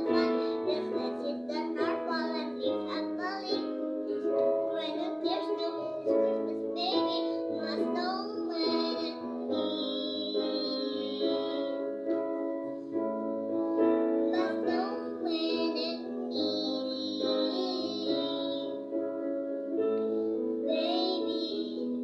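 A young girl singing a song over backing music of held chords.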